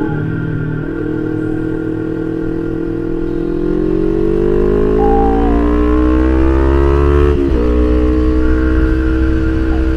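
Kawasaki Ninja 250 FI parallel-twin engine under acceleration, heard from the rider's seat. The revs climb steadily for about six seconds, dip sharply once near the three-quarter mark as it shifts up a gear, then run steady.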